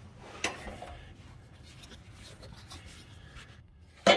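Hands working a rubber V-belt and mower deck parts: faint rubbing and handling noise, a soft knock about half a second in and a sharp knock near the end.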